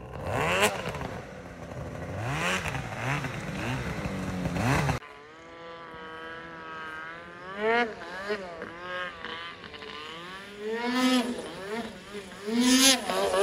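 Snowmobile engine revving in repeated bursts, rising and falling about once a second, as the rider tries to free a sled stuck in deep powder; the sound cuts off abruptly about five seconds in. Then a second snowmobile's engine revs up and down, growing louder as it approaches.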